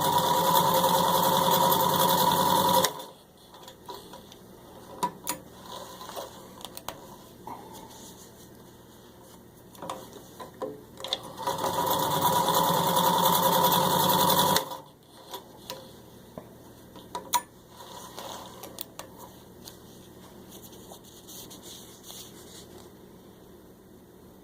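Singer 66-16 sewing machine stitching through four layers of thin leather in two steady runs of about three seconds each, the second starting about eleven seconds in, with scattered clicks and handling noise between the runs.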